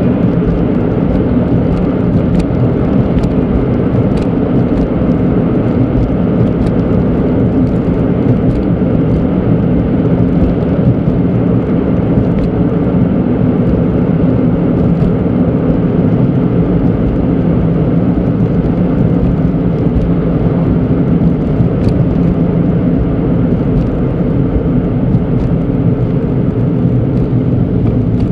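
Steady in-cabin engine and road noise of a Suzuki Alto Turbo RS (HA36S) cruising along a town road, its turbocharged 660 cc three-cylinder running at an even pace.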